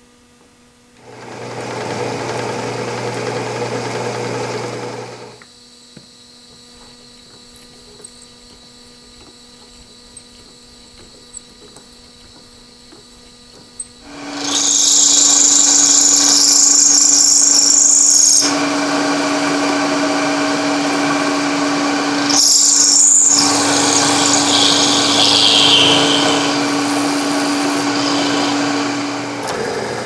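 Vertical milling machine running, its end mill cutting a metal block under flood coolant: a steady motor hum under a loud hissing cutting sound from about halfway in, briefly easing once. A shorter burst of machine noise comes about a second in.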